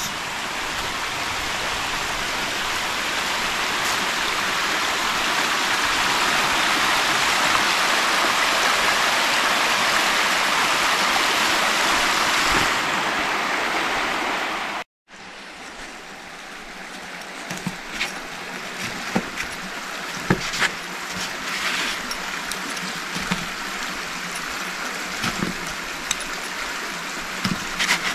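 Creek water running over rocks: a steady rush. About halfway through it drops out for a moment and returns quieter, with scattered light clicks and taps over it.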